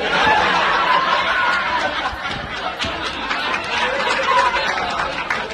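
Several horses munching dry hay: a steady, dense rustling and crackling of stalks with many small crunches as they chew.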